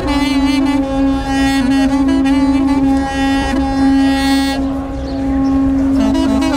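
Armenian duduk playing a slow melody, mostly one long held low note broken by brief ornamental turns.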